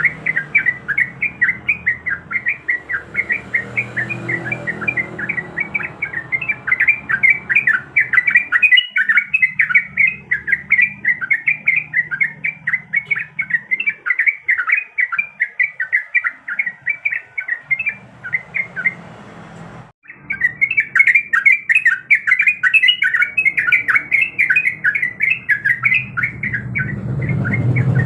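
Yellow-vented bulbul (trucuk) singing a long, fast run of chattering notes. The run breaks off for about a second a little after two-thirds of the way through, then starts again. A low rumble runs underneath.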